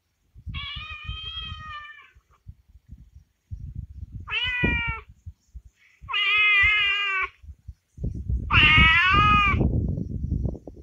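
Predator call sounding four drawn-out, wavering distress cries, each lasting a second or so, the last the loudest, used to lure coyotes. Low wind or handling rumble on the microphone under them.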